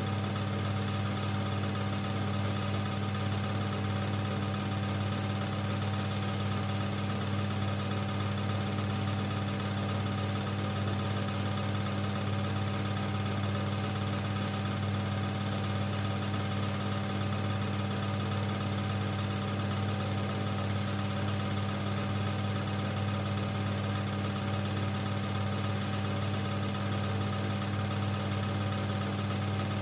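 Super 8 film projector running, a steady mechanical hum and whirr with no change in pitch or level.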